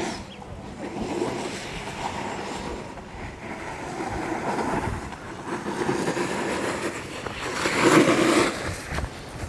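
Rushing wind noise on the microphone, surging and easing, loudest about eight seconds in.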